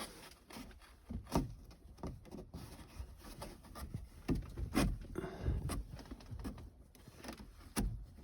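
Irregular light knocks, clicks and a brief rubbing of a plastic trim piece being pushed and shimmied onto a car's sunroof shade by hand, the loudest knocks about halfway through and near the end.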